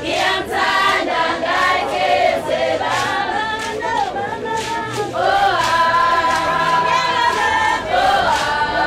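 A group of voices singing together unaccompanied, in a choir style, with several held notes sung in unison.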